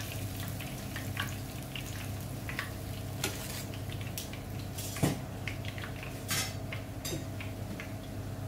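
Leftover cooking oil sizzling and crackling in a frying pan after breaded fish fillet has fried in it, with a constant scatter of small pops over a steady low hum. A sharper click stands out about five seconds in.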